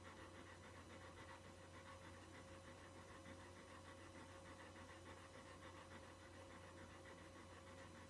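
Near silence: a golden retriever's faint panting over a low steady electrical hum.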